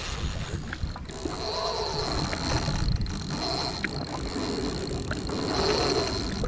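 Jet ski running at idle on choppy open water, with wind and waves on the microphone and a steady high-pitched whine that swells and fades.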